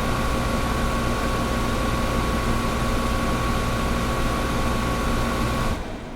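Air conditioner running: a steady rush of air with a constant tonal hum. Near the end the hum and much of the rush cut off suddenly, leaving a quieter, even hiss.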